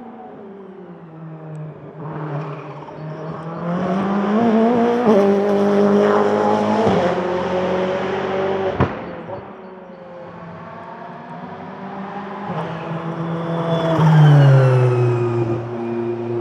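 Ferrari 488 GT Modificata's twin-turbo V8 race engine at full throttle as the car passes on track, its pitch climbing through the gears with a sharp crack about nine seconds in. A second pass builds near the end, its pitch falling as it goes by.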